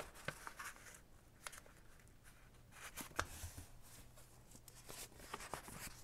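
Faint rustling of loose paper book pages being handled and moved on a cutting mat, with a few light taps.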